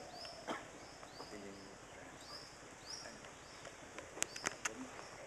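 A bird calling over and over: a short, high, rising chirp roughly twice a second. A quick run of sharp clicks comes about four seconds in, and a faint voice is heard low in the background.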